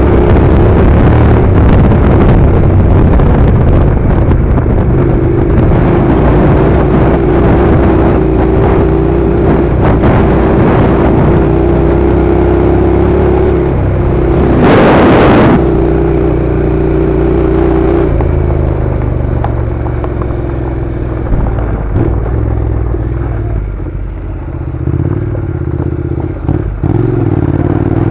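Honda NC700's parallel-twin engine running steadily as the motorcycle rides along a gravel track. About halfway through there is a loud rush of noise lasting about a second; the engine grows quieter in the last third, with a few short knocks.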